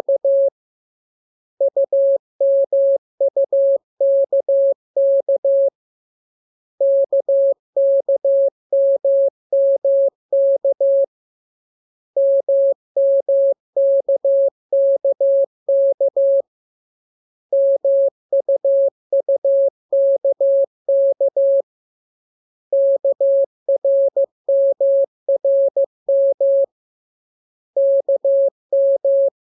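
Morse code: a single tone of about 600 Hz keyed on and off in dots and dashes, sent in groups of about four seconds with a pause of about a second between groups. It is receiving-practice traffic built from the lesson's letters K, M, U and R.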